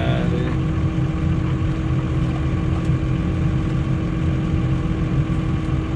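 Case IH Puma 200 CVX tractor's six-cylinder diesel idling steadily, heard from inside the cab: an even low drone with a constant tone over it.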